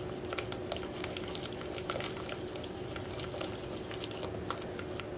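Liquid sauce stirred quickly in a pot with a spoon: sloshing, with many small ticks of the spoon against the pot's sides, over a faint steady hum.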